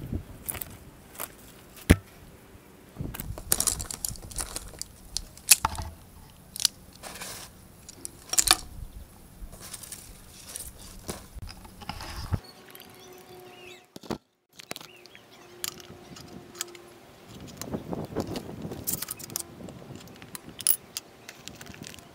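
Handling noises of small wooden craft pieces and tools on a table: scattered clicks, taps and knocks at irregular intervals.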